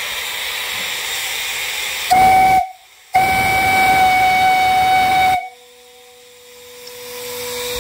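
Steam hissing steadily, then the brass steam whistle on a fire-tube steam boiler blows about two seconds in: a short blast and, after a brief break, a longer blast of about two seconds that cuts off sharply.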